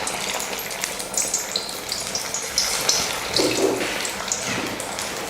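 Aval (flattened rice) and roasted-gram vadas deep-frying in hot oil: a steady sizzle with small crackles.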